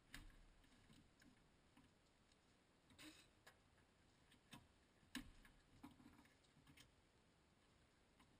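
Faint, scattered clicks and taps of plastic wiring-harness clips and connector being worked loose by hand, a handful over several seconds, the sharpest about five seconds in.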